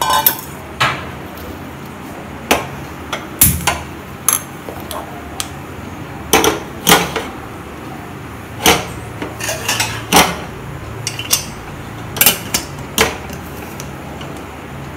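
Aluminium pressure cooker clanking as it is handled: about twenty sharp, irregular metal knocks and clinks as it is set on a gas stove's grate and its lid is fitted and closed.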